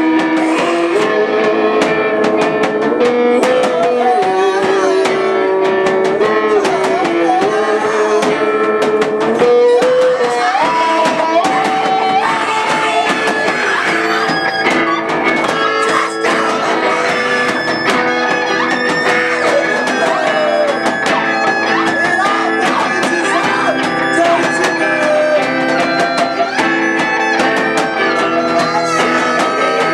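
Live rock band playing loudly: electric guitar and drum kit, with a singer's voice bending and holding notes over them.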